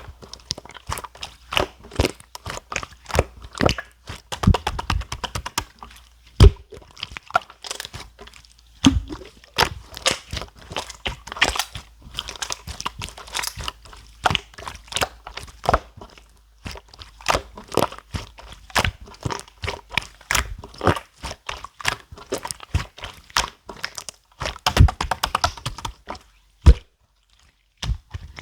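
Clear slime being squeezed and pressed by hand, making dense, irregular clicking and popping sounds with a few louder snaps.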